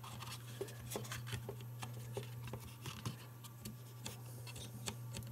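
Faint clicks and light rubbing of fingers handling a Sony Handycam camcorder's zoom lever and plastic body, scattered irregularly over a low steady hum.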